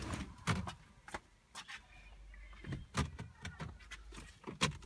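Irregular clicks and knocks of handling and movement in a car's front cabin as a person gets out of the driver's seat. There are about a dozen sharp ones, unevenly spaced, with a low steady hum underneath.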